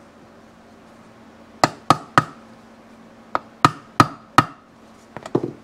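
Plastic-faced hammer tapping dowel pins into the aluminium crankcase half of a Yamaha AT2 125: three quick taps, then four more after about a second's pause, each with a brief ring, and a few lighter clicks near the end.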